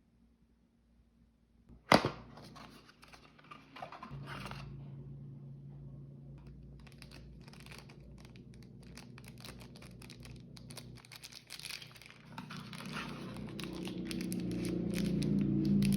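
Packaging being opened by hand: a sharp snap about two seconds in, then tearing and crinkling of wrapping with many small clicks, getting louder near the end.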